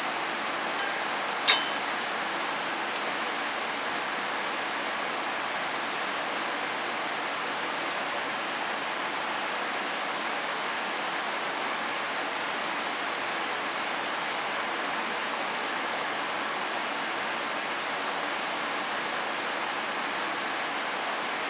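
Steady, even hiss of background noise, with a single sharp click about a second and a half in.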